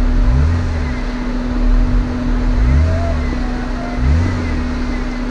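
Off-road vehicle engine running as it crawls over rocky dirt, revving up in short low pulses every second or so over a steady hum.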